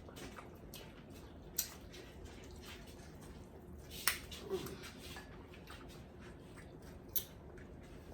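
A few sharp cracks and clicks of crab leg shells being broken open by hand while eating, three distinct snaps a few seconds apart, with a brief murmured hum near the middle.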